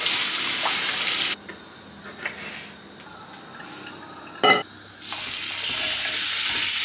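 Kitchen tap running over cherry tomatoes, which stops about a second and a half in. About four and a half seconds in there is a single clunk, then steak starts sizzling steadily on a hot ridged grill pan.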